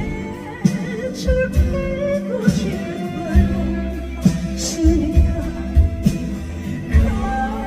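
A live band playing a pop ballad, with drum hits under sustained chords, and a woman singing the melody with vibrato.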